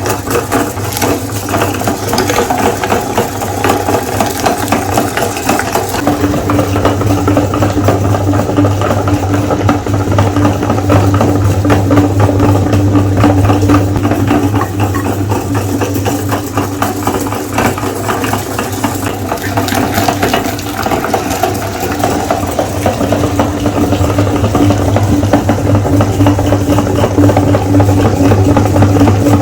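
Electric meat grinder running steadily, its motor humming with a rattle from the grinding mechanism. The hum grows stronger about six seconds in.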